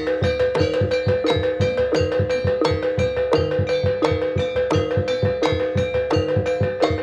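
Javanese gamelan ensemble playing dance accompaniment: a fast, steady beat of drum strokes with struck metal pitched notes over a held note.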